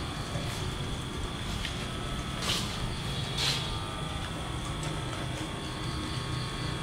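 Small omni-wheel robot driving across a tiled floor: a steady motor hum with a constant high whine, and two short hissing bursts a second apart around the middle.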